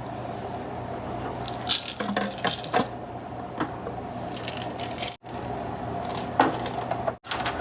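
Plastic parts of an air humidifier handled and set down: a few scattered light clicks and clatters over a faint steady hum.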